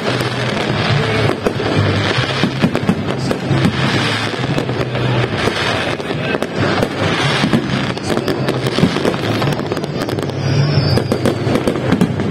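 Fireworks display: a continuous barrage of rapid bangs and crackling from many shells bursting overhead.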